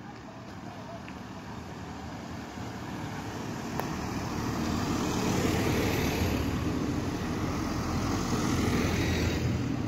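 Two cars drive past close by, one after the other. The sound swells as the first approaches and passes about halfway in, and the second, a small Renault Clio hatchback, passes near the end.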